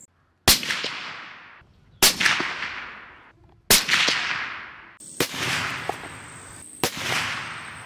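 Five rifle shots from a .308 Winchester bolt-action rifle, about a second and a half apart. Each is a sharp crack followed by a long echo that dies away.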